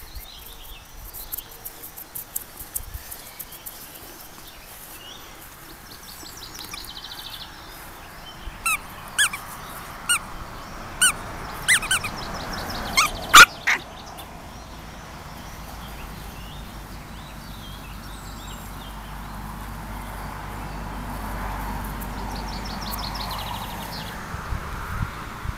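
Pomeranian puppy giving a run of short, high yips, about eight in five seconds, the last ones the loudest. Faint bird trills in the background.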